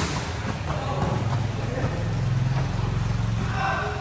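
A motor vehicle's engine running, a low hum that swells in the middle and eases off near the end.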